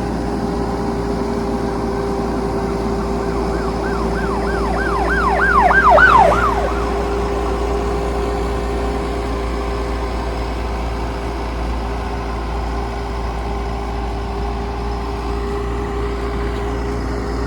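Bobcat 337 compact excavator's diesel engine running steadily under the operator. A few seconds in comes a run of about eight quick rising-and-falling squeals, which gets louder and then stops.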